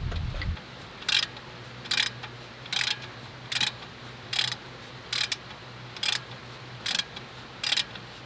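Ratchet wrench working a bolt: short bursts of ratchet clicks, about nine of them spaced under a second apart.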